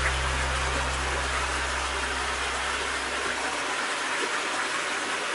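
Steady rush of falling water from a waterfall, with low background music notes fading out about three and a half seconds in.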